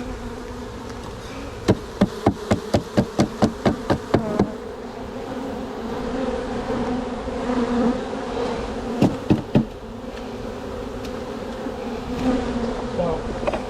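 Honeybees buzzing around an opened hive. About two seconds in comes a quick run of about a dozen sharp knocks, roughly four a second, and three more knocks near the middle.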